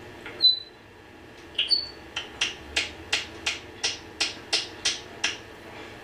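Pet talking bird giving two short high chirps, then a run of about ten sharp, evenly spaced clicks, about three a second.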